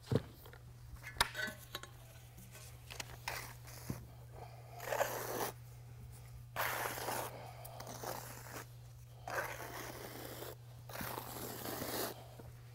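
Notched trowel dragged in long strokes through freshly poured self-leveling epoxy on a board, a wet scrape about every two seconds. A couple of sharp knocks near the start as the bucket is set down.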